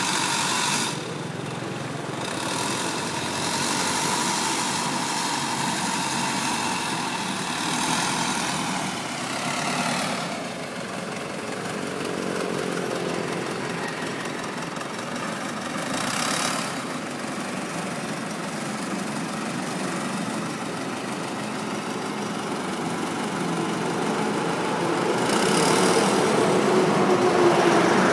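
Diesel engine of a wheel loader running under load as it works, its pitch rising and falling a few times and growing louder near the end, with a dump truck's engine idling alongside.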